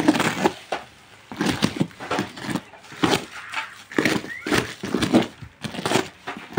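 A small knife cutting and tearing through the plastic wrap and packing tape of a parcel. The plastic crinkles and rips in a series of irregular short strokes.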